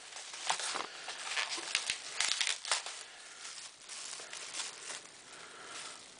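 Clear plastic wrapping crinkling and rustling as it is handled and pulled open, in a run of quick crackles over the first three seconds, fainter after.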